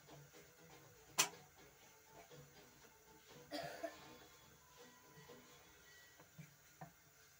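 A wooden rolling pin rolling out paratha dough on a stone slab, with a sharp knock about a second in, a rougher burst about halfway through and a few light taps near the end.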